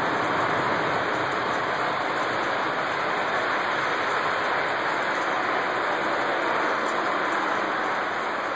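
Very loud, steady rushing noise with no distinct pitch or rhythm, easing very slightly near the end.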